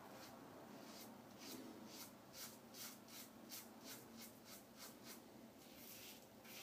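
Gillette Fat Handle Tech safety razor scraping through lathered stubble on the chin and neck in short, faint strokes, about three a second, with a brief pause near the end. A mild, forgiving razor cutting whiskers smoothly.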